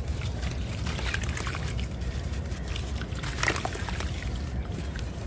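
Dry crumbly clay being crushed, crunching and crumbling in irregular crackles, the loudest about three and a half seconds in, over a steady low rumble.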